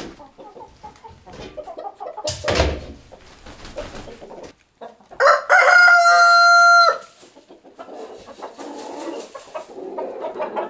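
Chickens clucking in a barn, with a rooster crowing once, long and loud, about five seconds in; a brief thump sounds about two seconds in.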